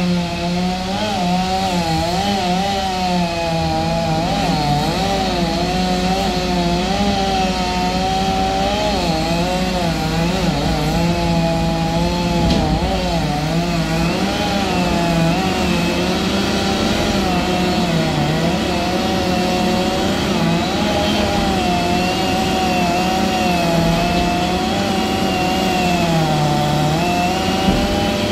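Chainsaw cutting through wood, its pitch wavering up and down as the chain loads and frees, over the steady drone of the telehandler's engine.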